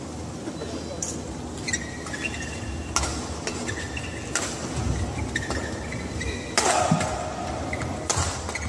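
Badminton rackets striking a shuttlecock in a doubles rally, a sharp crack every second or two, with shoe soles squeaking on the court floor in between.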